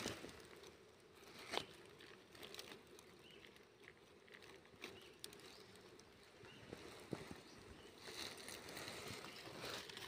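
Faint rustling and scratching with a few light clicks, as of handling on dry leaf litter. The clearest click comes about a second and a half in and another about seven seconds in, and the rustling grows a little louder near the end.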